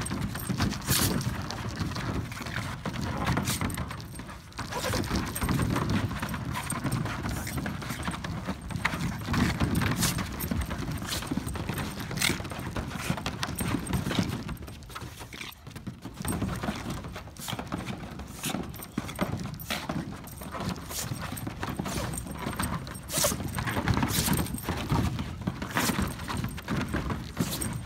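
A miniature schnauzer and a small curly-coated dog play-fighting on a mesh pool cover: claws clicking and scrabbling, with low play growling that swells and fades every few seconds.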